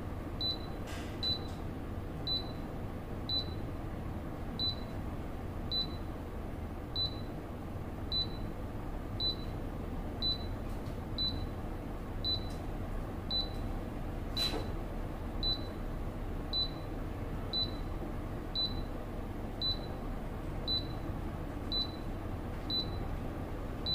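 Short, high single beeps from a Daikin inverter air conditioner's indoor unit, about one a second at an even pitch, each answering a press of the remote's Cancel button while it steps through the error codes. None is the long beep that marks the stored fault code. A faint steady hum runs underneath.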